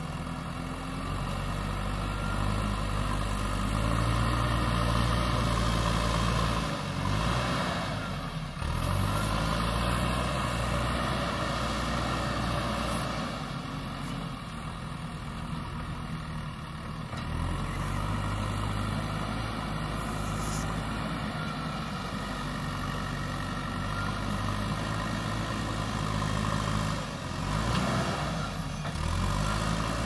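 JCB 3DX backhoe loader's diesel engine running under load as the machine drives and works its front loader, the engine note dropping and rising again several times.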